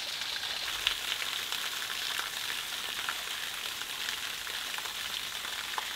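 Steady hiss of running water with faint, scattered ticks.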